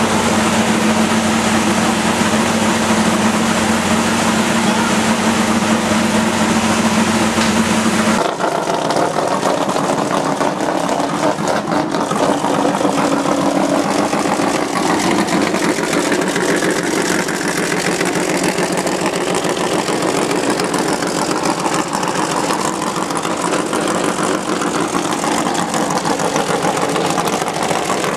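Corvette C6.R race car's V8 engine idling with a steady, loud note. The sound changes abruptly about eight seconds in, and from then on the engine idles with its pitch slowly rising and falling through light revs.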